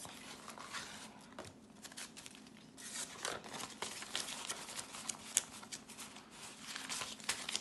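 Jamaican dollar banknotes rustling and flicking as they are counted by hand. It is a string of short, crisp rustles that gets busier about three seconds in.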